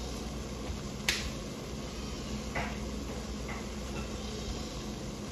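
Seasoning being added from a spice shaker: one sharp plastic click about a second in, then two short shakes, over a steady low hum.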